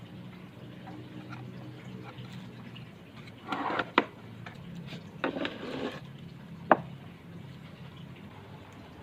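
A few short scrapes and sharp knocks, as of objects being handled and set down, over a low steady hum. The loudest knock comes about four seconds in and another near seven seconds.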